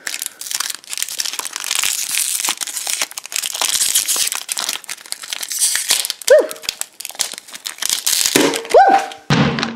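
Foil balloon packet crinkling and crackling as it is squeezed and pulled open by hand, with many small rapid crackles throughout.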